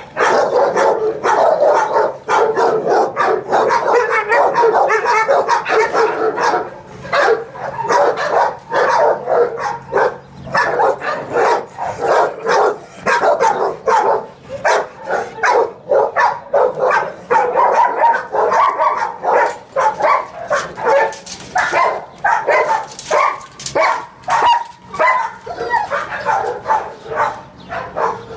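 Many dogs barking at once in kennel runs, overlapping barks with no pause.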